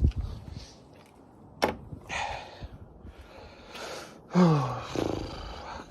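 Plastic car trim being handled and fitted: a single sharp click, then some scraping and rustling, and a short grunt that falls in pitch.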